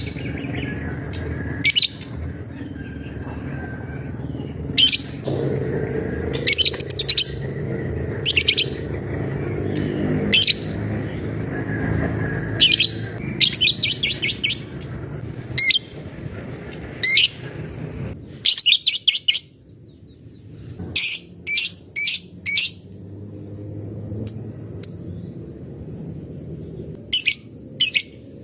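Bird known locally as a labet giving sharp, high chirping calls, some single and some in quick runs of three to five notes, every second or two: its call to a rival.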